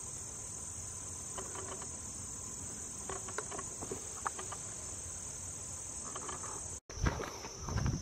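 Steady, high-pitched chorus of insects. About seven seconds in the sound cuts, and footsteps on a dirt trail begin over a continuing insect chorus.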